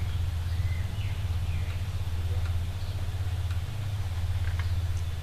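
Steady low hum, with a few faint high chirps like birdsong and light ticks over it.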